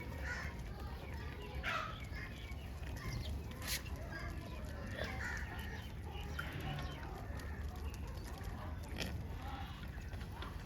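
Birds calling in short, scattered clucks and chirps over a steady low rumble, with one sharp click a little under four seconds in.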